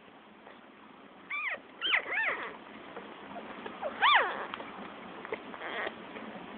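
Newborn shih-tzu puppies squealing: three short high cries in quick succession a little over a second in, then a louder rising-and-falling cry about four seconds in.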